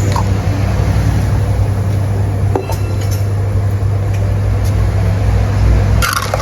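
Steady low rumble and hiss of a cooking burner heating a pot of oysters, with a faint tick or two about halfway through.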